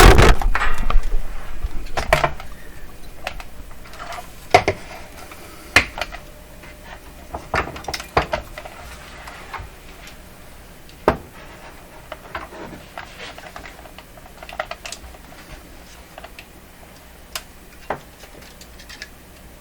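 A loud knock, then scattered light metallic clicks and clinks of tools and parts being handled on a workbench, a dozen or so at irregular intervals.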